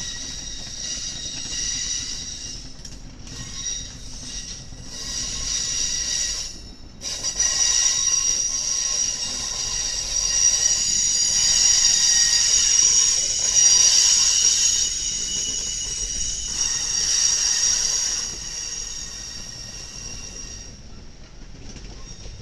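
Freight train's wheels squealing, several high steady tones at once, with a short break about seven seconds in, loudest around the middle and fading near the end.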